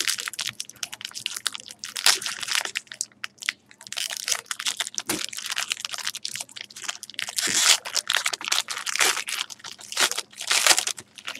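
Foil wrapper of a hockey card bonus pack crinkling and crackling as it is opened and crumpled, in several spells of rustling.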